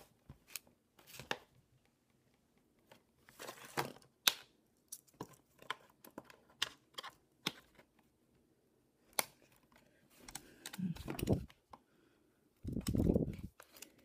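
Light clicks, taps and short scrapes of a MacBook's metal L-bracket and plastic case parts being pressed and fitted into the battery bay by hand, while the insulation is tucked in. Near the end come two longer, duller rubbing sounds.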